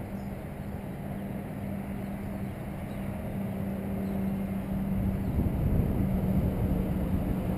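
Wind buffeting the microphone, an uneven low rumble that grows stronger about five seconds in, over a steady low hum.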